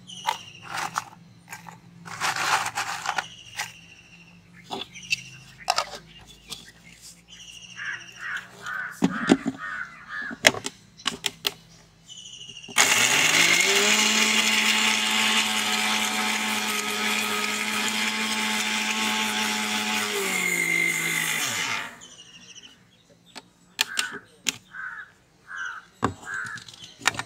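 Electric mixer-grinder dry-grinding biscuits to powder in its steel jar. The motor spins up with a rising whine about halfway through, runs steadily for about nine seconds, then winds down. Before and after it come scattered clicks and knocks of the jar and biscuits being handled.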